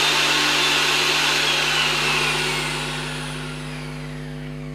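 Butterfly Speedy 750-watt mixer grinder motor running unloaded at third speed with no jar fitted, then winding down: its high whine falls steadily in pitch and the noise fades over about three seconds.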